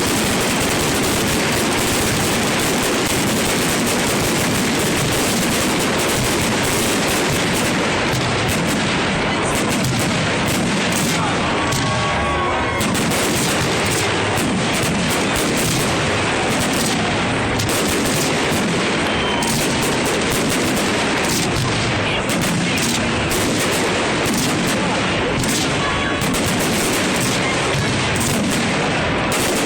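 Fireworks display: a dense, unbroken barrage of bangs and crackle from exploding shells, with no quiet gaps between them.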